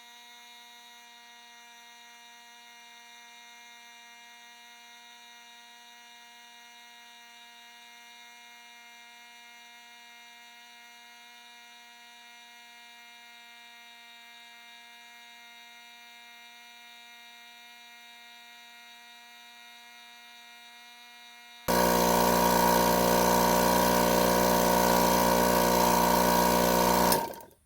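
A faint steady electrical hum, then near the end a train-horn kit's air compressor switches on with a very loud, even buzzing drone for about five seconds and cuts off, filling the air tank after a leaking hose was repaired.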